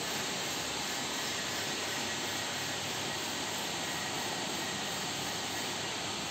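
Steady, even rushing noise with no rhythm or change, like a room's ventilation or a phone microphone's hiss.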